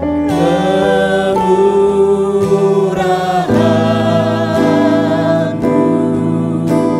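Christian worship song sung by a man and a woman in harmony, holding long notes, with keyboard and acoustic guitar accompaniment. The chords change about a second and a half and three and a half seconds in.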